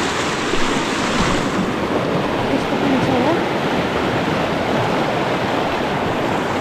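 Steady rushing of a river's flowing water, with a faint voice briefly about three seconds in.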